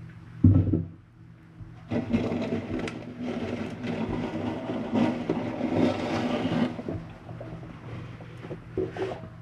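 Handling noise inside a rusted sheet-metal firebox: a loud thump about half a second in, then several seconds of scraping and rustling with small clicks, over a steady low hum.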